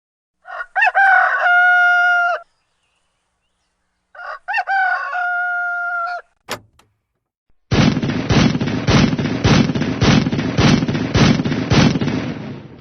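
A rooster crowing twice, each crow about two seconds long. After a brief click, a different loud, harsh noise starts about eight seconds in and pulses roughly twice a second.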